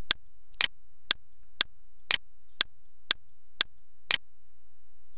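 Sharp computer clicks at an even pace of about two a second, nine in all, a couple of them doubled, stopping about four seconds in. They step a trading chart forward bar by bar.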